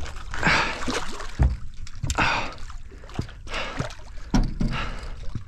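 A big bull red drum thrashing and splashing at the water's surface beside a boat, several separate splashes.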